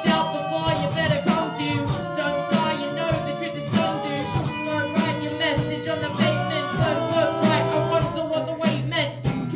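Student rock band playing a song: singing over electric guitar and bass guitar, with a steady beat.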